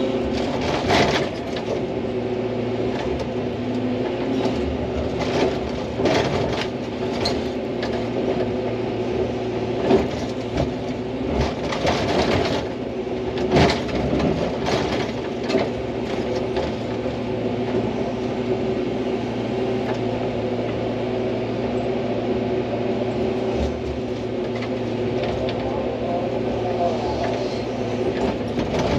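Hydraulic excavator's diesel engine running steadily under load, with scattered sharp knocks and cracks of the bucket digging into rock and packed soil.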